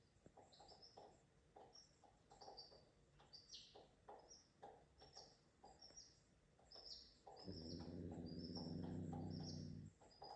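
Small birds chirping faintly, short high chirps repeated a couple of times a second. About two-thirds of the way in, a low, steady pitched drone joins for about two and a half seconds, then stops.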